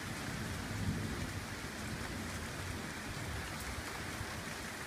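Steady rain falling during a thunderstorm, with a low rumble of thunder swelling about a second in.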